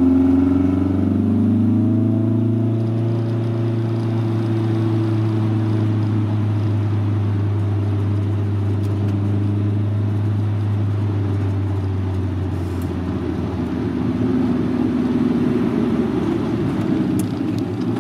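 Inside the cabin of a 1983 Volkswagen Rabbit GTI on the move: engine and road noise with a steady low drone. The engine note shifts in the first couple of seconds, then settles into an even cruise.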